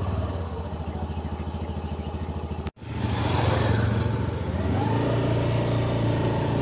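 A Honda Activa 6G scooter's small single-cylinder fuel-injected engine starts quietly, with no cranking noise, and idles with a steady rapid beat. After a brief break in the sound, the engine note is louder and rises as the throttle is opened to pull away.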